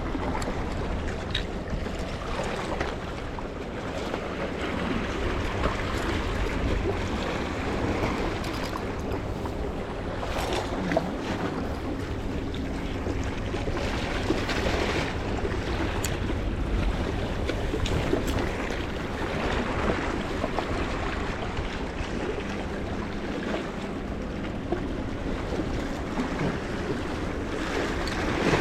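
Sea water washing against a rocky shore, with wind rumbling on the microphone.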